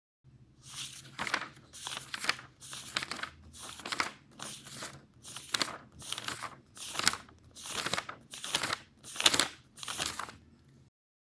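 Paper being handled in a regular series of short rustling strokes, about one every two-thirds of a second, stopping shortly before the end.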